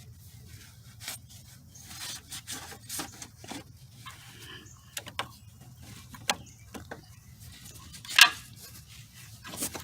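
Scattered light clicks and scraping of hands and tools working on metal at a car's ground cable connection, with one sharper click about eight seconds in.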